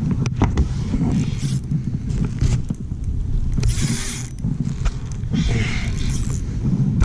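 Close handling noise from fishing gear on a kayak: a low rumble and scraping with scattered clicks, and two short hissing rushes, about four seconds in and again a second and a half later.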